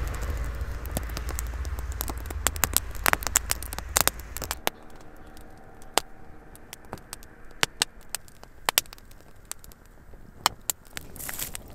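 Small campfire of split dry kindling crackling, with sharp snaps scattered throughout, over a low rumble that stops about four and a half seconds in.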